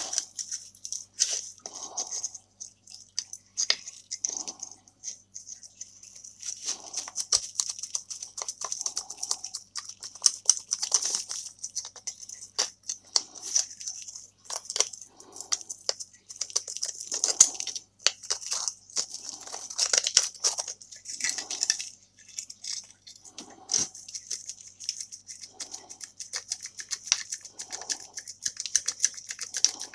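Pliers crunching and tearing rotted wood out of a rusted shovel's socket: a steady, irregular run of small cracks and crackles with soft scrapes of wood and steel between them.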